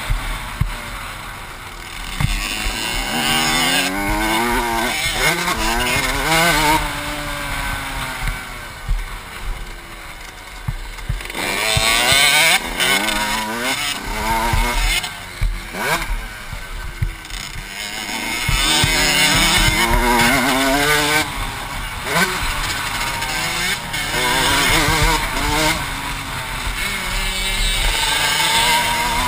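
Motocross bike engine revving up and dropping back again and again as the rider accelerates and shifts through the gears, with air rushing over the helmet-mounted microphone and occasional knocks as the bike hits bumps.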